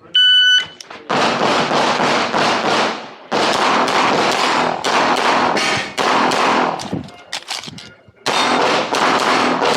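An electronic shot timer sounds its start beep, then a 9mm CZ Tactical Sport pistol fires rapid strings of shots, pausing briefly about three seconds in and again around seven to eight seconds in.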